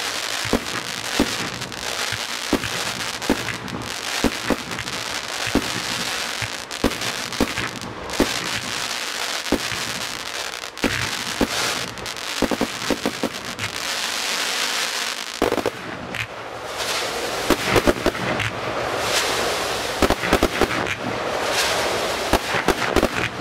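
Firework display: a rapid, uneven run of bangs from aerial fireworks launching and bursting, over continuous crackling and hissing.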